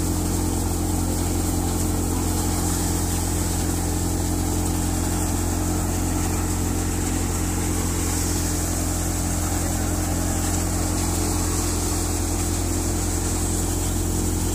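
Tractor engine driving a thresher through its PTO, both running steadily under load while green crop is threshed. The engine hum and machine noise stay even, with no change in speed.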